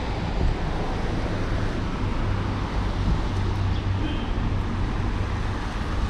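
Steady street noise of cars on a wet road, a tyre-and-engine hiss with a low rumble underneath and no distinct events.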